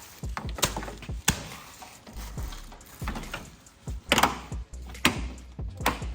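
Irregular sharp knocks and clicks of parts being handled, with a loud cluster about four seconds in.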